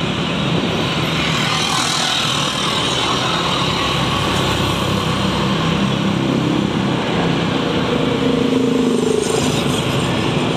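Motorcycle ride through traffic: a steady engine hum mixed with wind and road noise, with other scooters and cars around.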